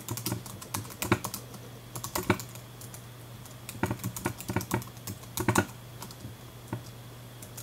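Computer keyboard being typed on: short clusters of keystroke clicks with brief pauses between words, over a steady low hum.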